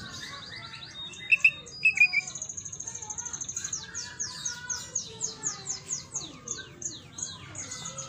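Caged greater green leafbird (cucak ijo) singing a varied song. It opens with quick trills and two loud, sharp chirps about a second or two in, then a long high trill threaded with a rapid run of down-slurred whistled notes.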